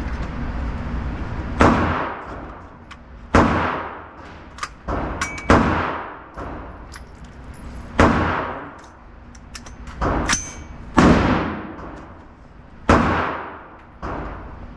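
A string of gunshots, about nine in all, irregularly spaced and some louder than others, each cracking sharply and then ringing out in a long echoing decay.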